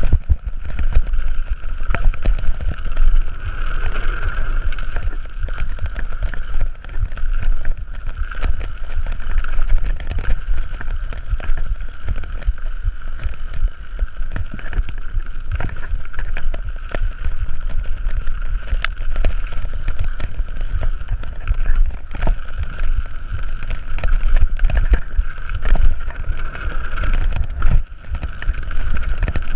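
A mountain bike descending a dirt trail, heard from a camera mounted on the bike. Wind buffets the microphone with a heavy rumble, and frequent short clattering knocks come from the bike bouncing over bumps, roots and rocks.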